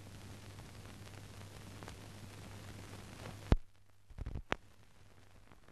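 Steady background hiss with a low hum, the noise floor of a silent film transfer. About three and a half seconds in, a sharp click cuts the hiss off. A few fainter clicks and pops follow over a much quieter floor.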